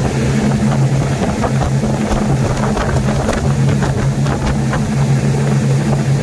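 Police patrol boat running fast: a steady low engine drone over the rushing noise of spray and wind.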